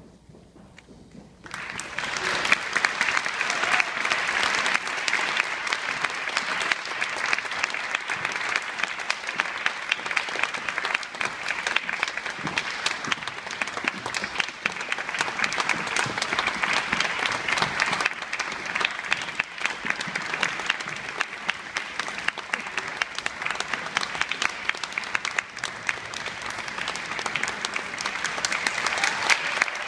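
Audience applauding: many people clapping in a dense, steady patter that starts about a second and a half in and keeps going.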